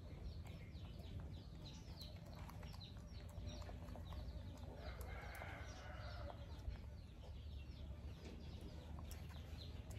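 Animal calls: many short, high chirps, with a longer pitched call about five seconds in, over a steady low rumble.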